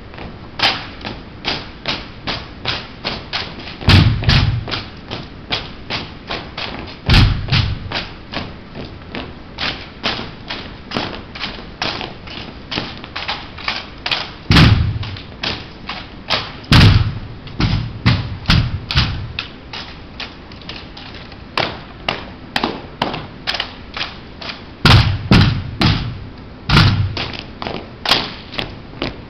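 A rifle drill team marching in step on a hard floor: a steady beat of boot heels about twice a second, punctuated several times by heavier, deeper thumps and slaps as rifles are handled and stamped in unison.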